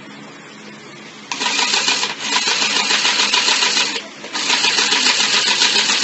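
Battery-powered children's toy sewing machine running in two bursts with a short stop between, its mechanism chattering rapidly as it stitches.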